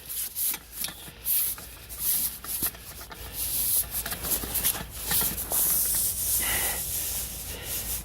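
Rubbing and rustling noises with scattered light clicks, over a steady high hiss.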